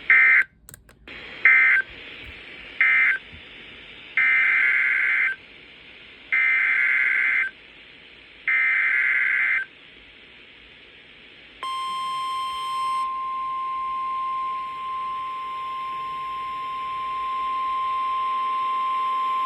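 Emergency Alert System SAME data bursts on NOAA Weather Radio. Three short warbling end-of-message bursts come first, then three longer header bursts announcing the next alert. About twelve seconds in, the steady 1050 Hz weather radio warning alarm tone starts and holds for about nine seconds, over faint radio hiss.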